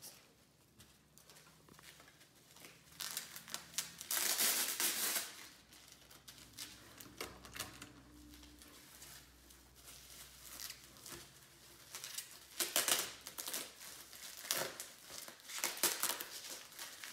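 Bubble wrap and plastic packaging crinkling and rustling in irregular bursts as items are dug out of a cardboard shipping box of packing peanuts, loudest about four seconds in and again near the end.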